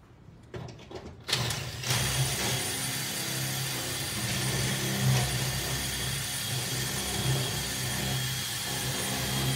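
Cordless drill running steadily under load, boring into the metal top housing of an ATM. It starts a little over a second in, after a few short clicks.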